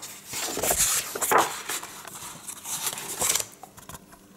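Hardcover comic books being handled on a table: rubbing, sliding and light knocks, loudest in the first second or so, fading out after about three and a half seconds.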